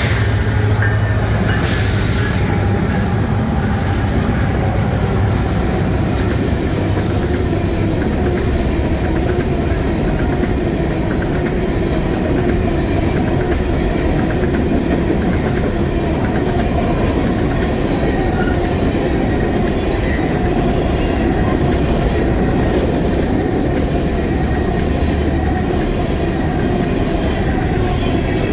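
A train passing close by, its wheels running steadily over the rails with clicks, loud and unbroken throughout, with a low steady hum under it near the start and again later on.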